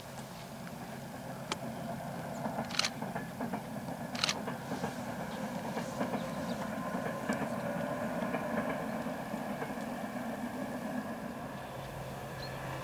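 ADtranz DE2000 diesel-electric locomotive hauling an InterCity train, heard from a distance: a steady engine drone and the rumble of the coaches on the track, with a few sharp clicks. It grows louder towards the middle and eases off near the end.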